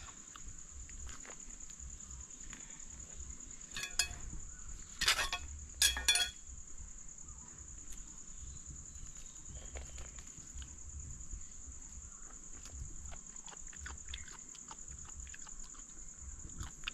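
Steady high-pitched drone of forest insects, with three short sharp calls about four to six seconds in.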